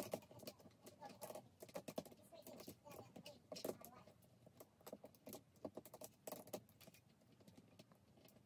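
Faint, irregular clicks and taps of a plastic ring light and its tripod mount being handled and fitted together.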